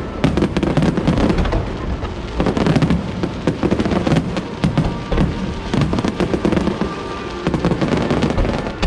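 Aerial fireworks bursting in rapid, overlapping succession: a continuous barrage of booms and crackles with no pause.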